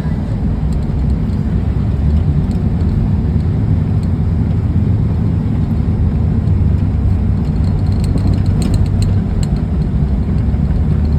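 Steady low rumble of a vehicle's engine and tyres on the road, heard from inside the cab while driving, with a few faint ticks about two-thirds of the way through.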